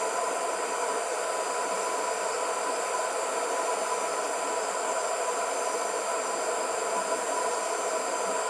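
INGCO HG200028 2000 W heat gun running steadily on its second setting, the low-airflow hot setting: a steady rush of blown air with a faint thin whine.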